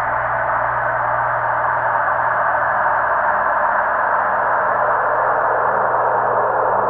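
Moog Mother-32 analog synthesizer, run through a Zoom MS-70CDR effects pedal, sounding a steady wash of filtered noise over a faint low drone. The noise band sinks slowly lower in pitch.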